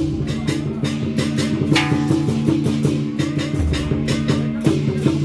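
Loud music with a fast, steady drum beat over held low notes, with a crash about two seconds in.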